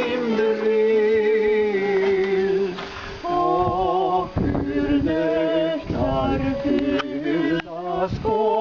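Music with male and female singing voices, with long held, wavering notes and short breaks between phrases.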